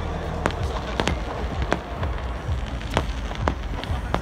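Aerial fireworks going off: an uneven series of sharp bangs, about two a second, over a steady low rumble.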